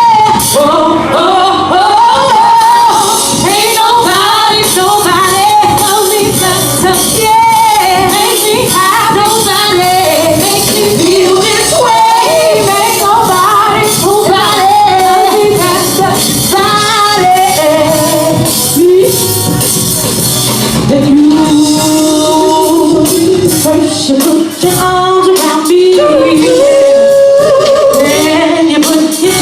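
A woman singing an R&B song with a live band, her voice gliding through long sustained notes and runs.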